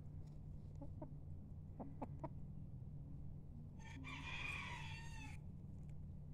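A Golden Buff Cochin rooster crows once, a single call of about a second and a half, starting about four seconds in. A few short clucks from the flock come earlier.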